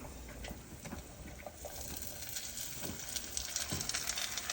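Dill-mixed rice going into a pot of hot butter and oil, sizzling, the sizzle building from about a second and a half in, with light taps and scrapes of the spoon.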